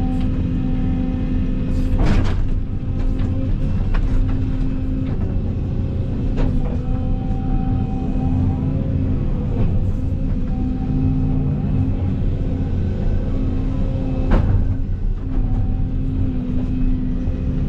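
Excavator engine running steadily under load, with a few sharp clanks from the machine as it works.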